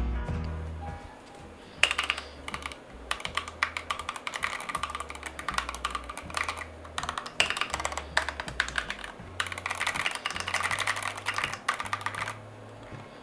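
Fast typing on a SKYLOONG GK980+ mechanical keyboard: a dense run of key clacks that starts about two seconds in and stops about a second before the end. Soft background music with a low bass line plays under it.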